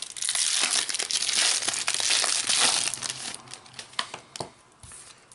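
Trading-card booster pack wrapper crinkling loudly as it is opened and crumpled, for about three seconds, then quieter, with a few light taps as the cards are handled.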